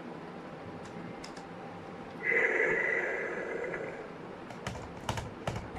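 A steady sound lasting nearly two seconds starts about two seconds in, then a few sharp clicks come near the end as the plastic dinosaur toy is handled.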